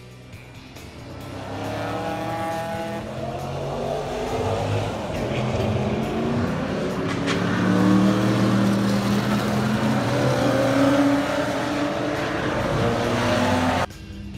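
Several vintage race cars, including a stock car, pass at close range, their engines loud and running hard, the pitch rising and falling as they go by. The sound cuts off abruptly near the end.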